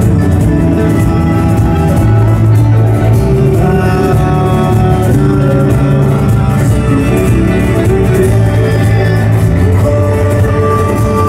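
Live rock band playing a song loudly: amplified acoustic and electric guitars with bass and drums, and a singer's voice.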